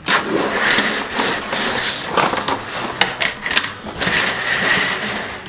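Flexible plastic Magic Tracks race-track sections rattling and clicking as they are bent, pulled apart and laid down on a tabletop, with many small knocks.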